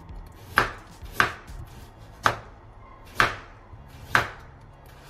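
Chef's knife slicing through a carrot onto a wooden cutting board: five sharp knocks, roughly one a second.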